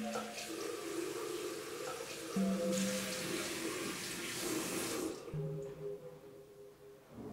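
Bathroom sink tap running as hands are washed under it. The water stops about five seconds in. Sustained drone-like music tones sound underneath.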